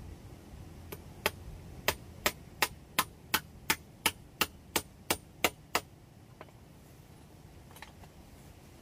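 A hammer striking a wooden board laid on log stumps: about fourteen sharp, evenly spaced blows, roughly three a second, stopping about six seconds in.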